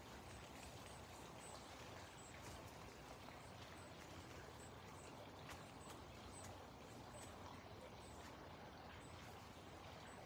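Near silence: faint outdoor background with a few faint, high chirps scattered through it.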